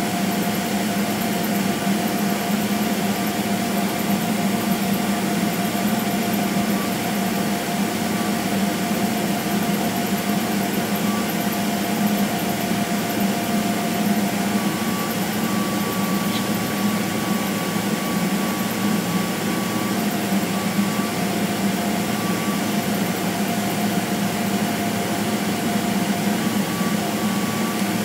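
Steady cabin noise inside a Boeing 777-300ER taxiing: a low hum from its GE90 engines at low thrust and the air-conditioning hiss, with a faint steady whine over it.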